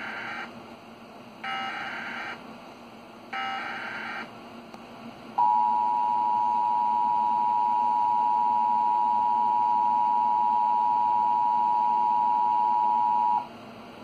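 Emergency Alert System alert tones: screeching bursts of SAME header data repeated about two seconds apart, then the steady two-tone EAS attention signal held for about eight seconds, announcing a National Weather Service flash flood warning.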